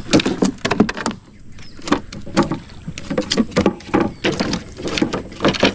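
Irregular knocks and clacks in a small boat, more than a dozen in quick succession, as a freshly caught fish is handled and unhooked.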